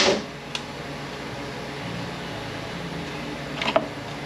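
Steady hum of a shop fan or air handler, with a sharp knock at the start and a brief cluster of clinks near the end as metal tools and bolts are handled on a transmission case.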